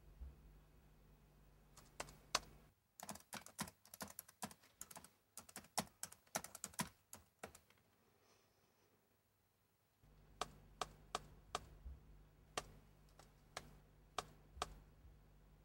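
Typing on a laptop keyboard: a few keystrokes, then a quick run of rapid keystrokes from about three to seven seconds in, then slower, evenly spaced keystrokes later on.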